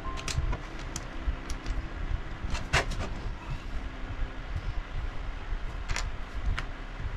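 Plastic Lego bricks clicking and rattling as they are handled, a handful of irregular clicks with the loudest about three seconds in, over faint background music.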